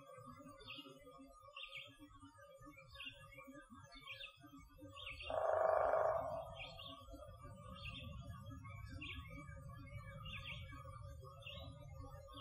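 Woodland dawn chorus: a songbird repeats a short high chirp a little more often than once a second over a low rumble. About five seconds in, a louder, harsh call lasting about a second and a half rises above it.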